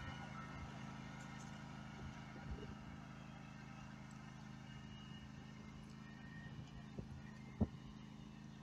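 John Deere riding lawn tractor's engine running steadily as it tows a loaded dump cart, with a single sharp knock near the end.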